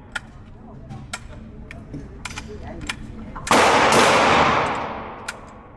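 Gunfire at a shooting range: scattered faint sharp shots, then one much louder close gunshot about three and a half seconds in, ringing out and dying away over about a second and a half.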